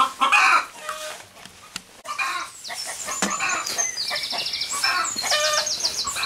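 Chickens clucking and calling. In the second half, high, quick chirping bird calls and fast trills sound over them.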